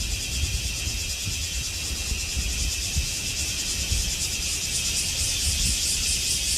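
High-pitched shrilling of an insect chorus in forest, steady at first, then pulsing about four times a second and growing louder in the second half. A low uneven rumble runs beneath it.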